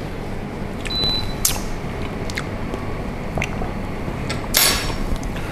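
A few light clicks and knocks from a spoon and kitchen utensils being handled, over steady low background noise, with a short, sharper clatter about four and a half seconds in.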